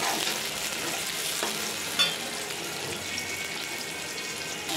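Soya chunks sizzling in hot oil in a kadai as they are stirred with a spatula, nearly done frying. A sharp knock of the spatula against the pan about two seconds in, with a few lighter clicks.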